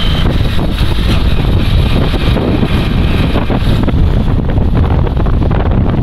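Wind buffeting the microphone over the running engine of a motor rickshaw driving along a road; a steady rumble and rush.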